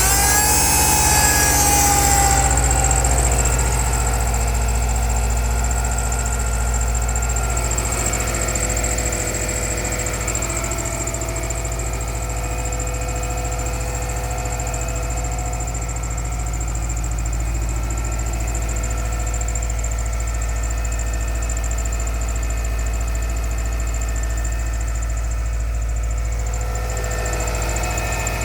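Subaru EJ25 2.5-litre flat-four engine idling just after a cold start at −16 °C, with the knock the owner set out to record. It is a little louder in the first few seconds, then runs steady.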